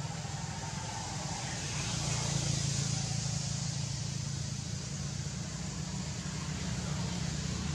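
Steady low engine hum under a broad hiss, swelling a little about two seconds in.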